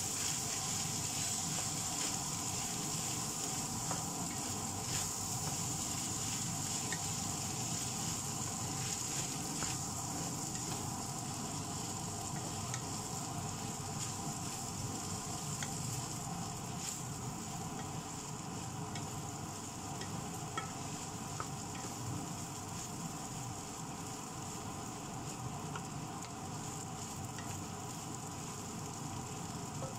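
Rice frying in a nonstick wok, sizzling steadily as a wooden spatula stirs and scrapes through it, with scattered light taps of the spatula against the pan.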